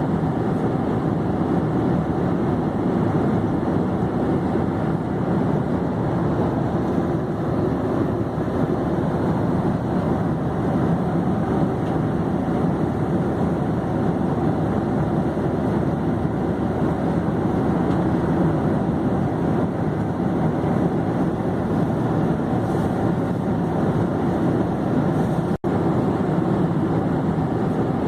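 Airplane in flight: a steady, low, even drone. It cuts out for an instant a couple of seconds before the end.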